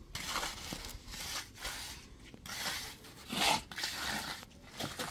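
Irregular scraping and rubbing strokes, roughly one a second, the loudest about three and a half seconds in.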